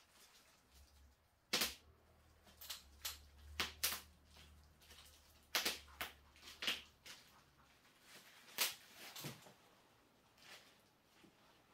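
Painting tools being handled: about ten sharp taps and clicks at uneven intervals, with a faint low hum that stops about eight seconds in.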